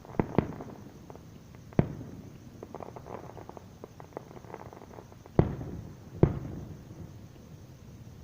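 Fireworks display shells bursting: five sharp booms, a quick pair right at the start, one near two seconds in, and another pair a little after five seconds, each trailing off in a low rumble, with a scatter of smaller pops in between.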